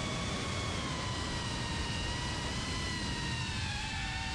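FPV quadcopter drone's motors and propellers whining in flight, several tones drifting in pitch with the throttle and dipping near the end. Wind rumble on the microphone runs underneath.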